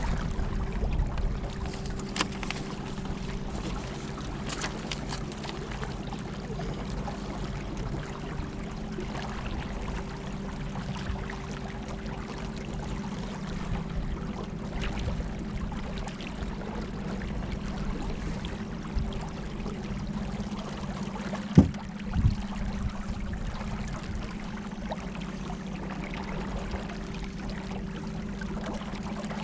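Electric trolling motor on a small boat humming steadily under way, over the rush and splash of river water. A single sharp knock about two-thirds of the way through.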